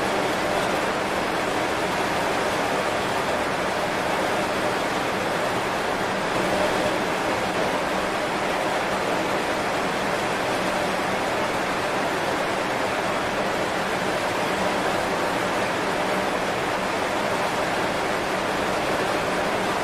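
Heavy rain falling on banana leaves, a steady, even hiss with no separate drops standing out.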